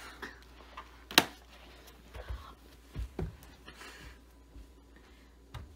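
A sharp click about a second in, then a few soft low thuds of a person getting up from the floor and walking barefoot across carpet.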